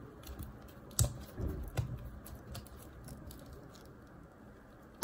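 Silicone resin mold being flexed and peeled off a cured resin heart shaker piece during demolding: soft rubbing and squishing of silicone with scattered light clicks, a few sharper ones about a second in and near two seconds.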